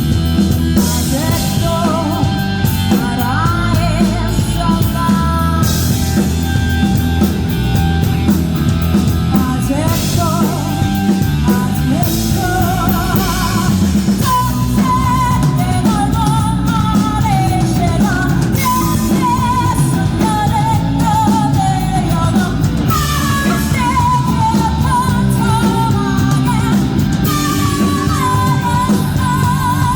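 Live rock band playing with a singer: a sung melody with vibrato over steady band accompaniment, recorded loud on a phone.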